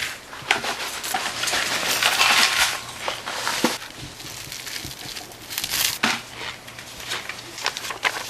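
A plastic prize packet crinkling and dry cereal rattling as hands dig the packet out of a plastic tub and tear it open, with scattered sharp clicks.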